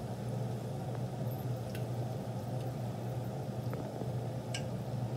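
A steady low hum with a few faint, scattered ticks.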